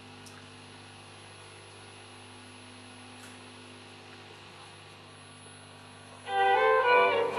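Steady mains hum from a 1936/37 Marconi EMI 706 valve television, with a thin high whistle over it. About six seconds in, violin music starts suddenly and loud.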